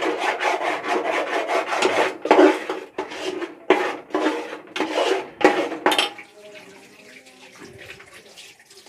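A metal ladle scraping and stirring thick tomato masala paste around a metal pot in quick repeated strokes, which stop about six seconds in.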